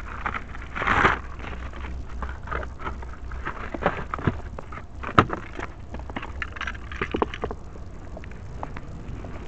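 Plastic bags rustling and crinkling as things are handled, with scattered small clicks and knocks, over a low steady hum. The loudest rustle comes about a second in, and there is one sharp click about five seconds in.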